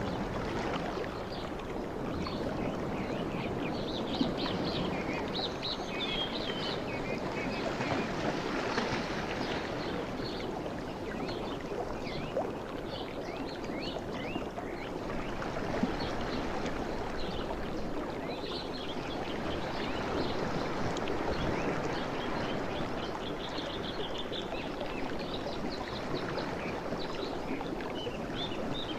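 Gentle waves washing steadily, with small birds chirping over the water sound, most busily a few seconds in and again after about twenty seconds.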